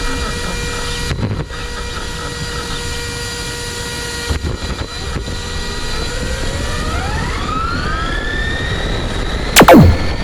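Brushless electric motor and drivetrain of an RC car whining, climbing steadily in pitch from about halfway as it speeds up, over a steady hiss with two short dropouts. A very loud, sharp falling sweep cuts in just before the end.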